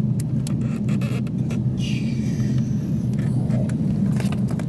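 Cabin noise aboard a taxiing Airbus A350: a steady low rumble, with scattered light ticks and a brief hiss about two seconds in.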